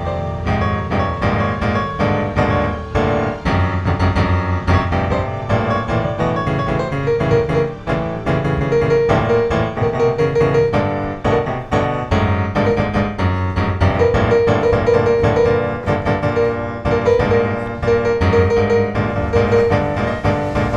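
Background music led by piano, a quick run of notes over a low bass line.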